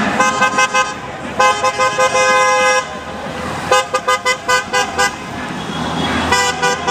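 Car horns honking at passing traffic: a string of quick short toots, then a long held honk, then a rapid run of about six short toots and another honk near the end.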